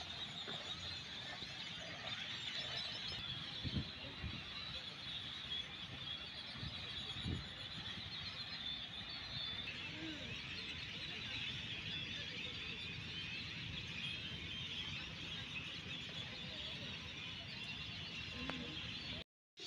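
A dense, continuous chorus of many birds chirping at once, with a couple of brief low bumps about four and seven seconds in. The sound cuts out for a moment just before the end.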